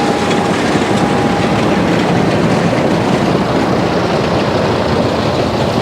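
Tractor and hay baler working in the field: loud, steady machine noise with no break.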